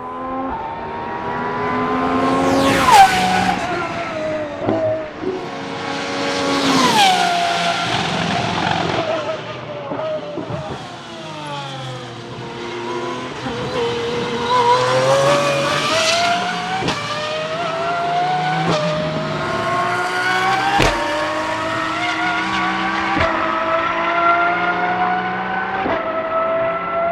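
Pagani Huayra R's 6.0-litre V12-R engine, fitted with its optional exhaust mufflers, running hard at a circuit. Its pitch drops sharply twice in the first eight seconds, then climbs steadily through several quick upshifts, each marked by a short crack.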